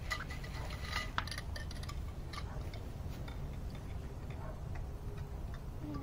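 Light clicks and clinks of metal greenhouse frame tubes and connectors being handled and fitted together, a few sharp ones with a brief ring in the first second or so, then sparser, over a steady low background rumble.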